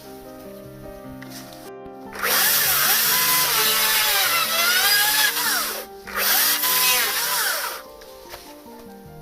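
A power tool runs in two loud spells of a few seconds each, its motor pitch dipping and rising as it is loaded, with background music beneath.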